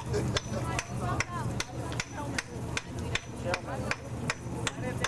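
Sharp taps or knocks in a steady, even rhythm, about two and a half a second, with faint voices behind.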